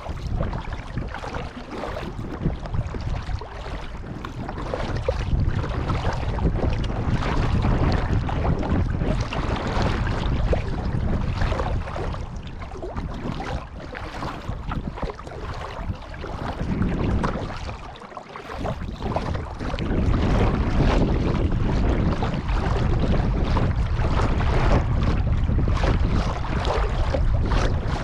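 Water sounds from a kayak being paddled on a pond, overlaid by wind buffeting the microphone as a low rumble that eases briefly about two-thirds of the way through.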